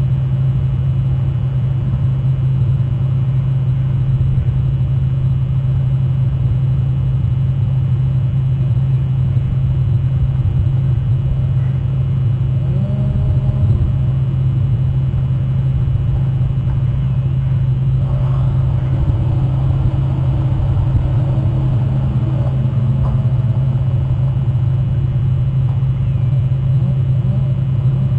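Steady low hum and rumble, with faint wavering tones about halfway through.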